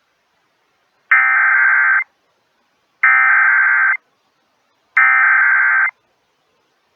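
Emergency Alert System SAME header: three identical bursts of buzzing data tones, each just under a second long and two seconds apart, starting about a second in. This is the digital code that opens a tornado warning alert.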